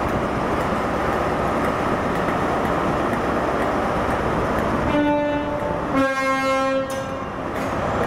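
Train's two-tone horn: a short higher note about five seconds in, then, after a brief gap, a slightly lower and longer note, over the steady noise of a train running.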